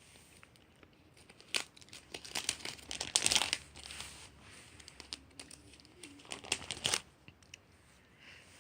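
Crinkling and rustling of trading cards being handled, in irregular bursts with small clicks, from about a second and a half in until about seven seconds in.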